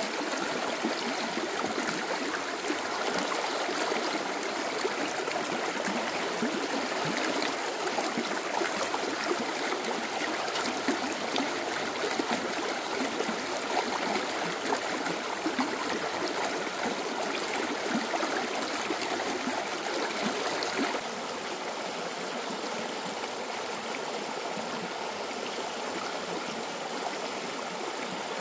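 Stream water running steadily. About 21 s in it drops a little quieter and duller.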